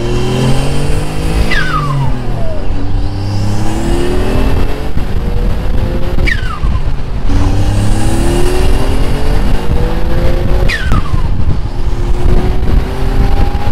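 Mitsubishi 3000GT VR4's built twin-turbo 6G72 V6 with straight-pipe exhaust accelerating hard through the gears, its pitch rising in each gear. At each of three shifts the blow-off valve vents with a whistle that drops sharply in pitch.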